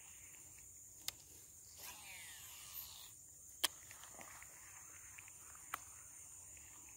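Faint sharp clicks from an Abu Garcia Black Max baitcasting reel being worked, three of them a couple of seconds apart, with a brief faint whir falling in pitch about two seconds in, over a steady high insect drone.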